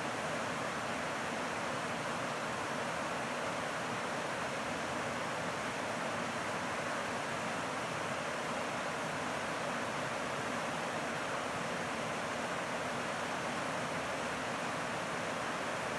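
Middle Fork Snoqualmie River rushing: a steady, unbroken water noise with no individual splashes.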